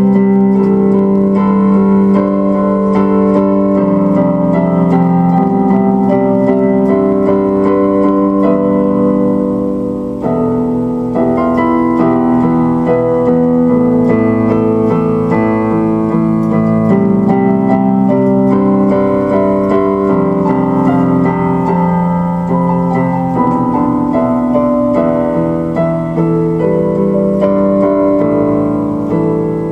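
Instrumental keyboard music, slow held chords changing every second or two.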